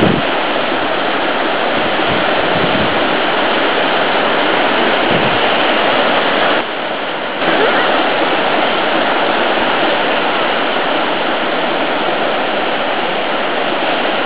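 Surf breaking and washing up the beach: a steady, loud rush of waves that dips briefly about seven seconds in.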